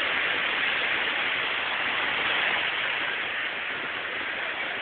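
Steady rushing beach ambience, an even hiss with no distinct events.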